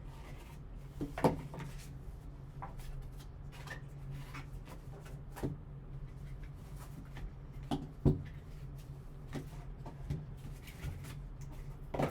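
Hands opening a cardboard trading-card box and handling its packaging: scattered soft taps, rubs and scrapes, the sharpest about a second in and about eight seconds in, over a low steady hum.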